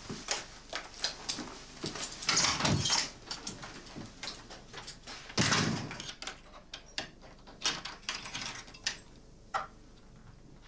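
A run of knocks, thumps and clatter of things being moved and bumped in an office, with two louder, heavier bangs about two and a half and five and a half seconds in, like a door or furniture being hit.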